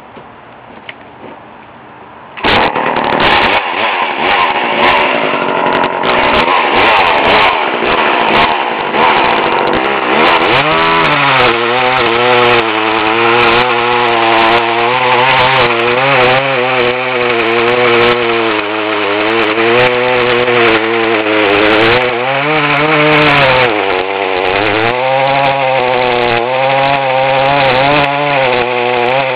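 A 1970s Poulan Super 25DA 38cc two-stroke chainsaw comes in suddenly, loud, about two seconds in and runs at high speed. From about ten seconds its engine pitch repeatedly sags and recovers as it bogs under load, cutting through a red oak log.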